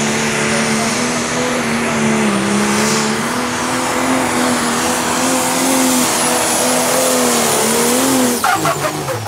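Pro Stock diesel pulling tractor running flat out under load, its engine note steady with slight wavering and a thin high whistle above it. About eight seconds in the throttle comes off and the engine winds down quickly.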